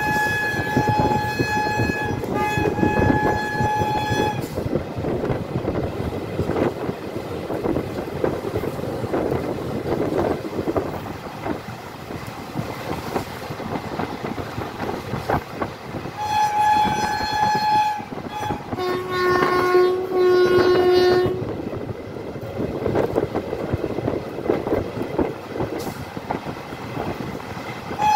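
WAG-9HC electric locomotive's horn sounding over the rumble and clatter of the moving train: a high-pitched horn for about four seconds at the start, broken once, then again briefly past the middle. Two blasts of a lower-pitched horn follow, and the high horn starts again at the very end.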